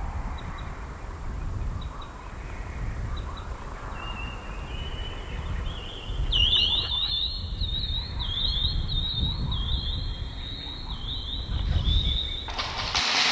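Wind gusting on the microphone as a low rumble. From about four seconds in, a high rising whoop repeats about twice a second. A sudden loud hiss cuts in near the end.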